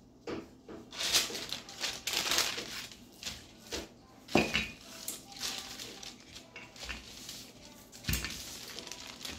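Parchment paper crinkling and rustling as a wooden rolling pin rolls chapati dough between the sheets and a hand smooths the paper. A couple of knocks stand out, the strongest about four seconds in and a duller thump near the end.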